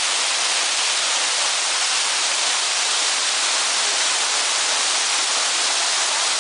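Waterfall: water falling and splashing, a steady loud hiss.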